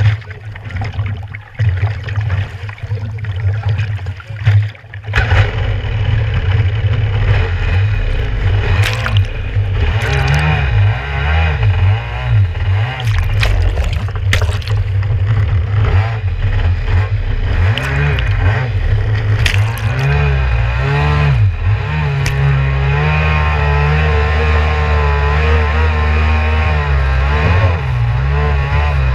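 Kawasaki 650SX stand-up jet ski's two-stroke twin engine, low and uneven at first, then opened up about five seconds in. Its pitch rises and falls with the throttle before holding steady at speed, with water spraying off the hull.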